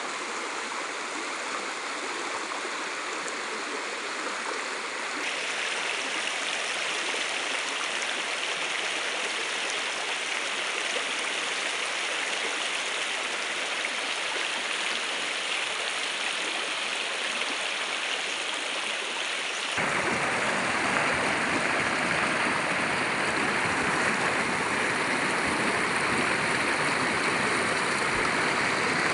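Shallow rocky river rushing over stones in rapids, a steady rush of water. It steps up in loudness about five seconds in, and again about twenty seconds in, when a deeper rumble joins.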